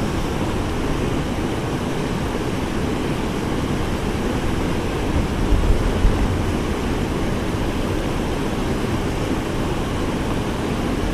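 Steady rush of river water spilling over a low stone dam and running through the current, with a couple of low bumps on the microphone around the middle.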